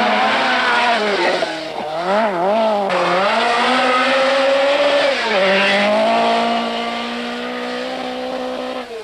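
Group B rally car engine at full effort on a stage. Its pitch zig-zags quickly up and down about two seconds in, as if the throttle is lifted and blipped, then holds high. It falls sharply about five seconds in and runs steady after that.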